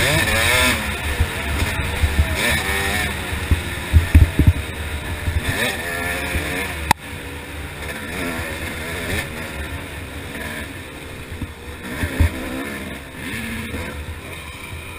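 Yamaha YZ250's 250cc single-cylinder two-stroke engine revving up and down as the dirt bike is ridden hard along a trail, heard from the rider's helmet camera with low thumps on the microphone. About halfway through the sound drops suddenly and the engine runs quieter.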